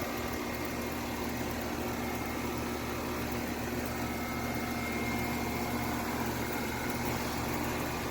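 Carrier air conditioner running: a steady hum with its fan turning, even throughout, with a faint high whine near the middle.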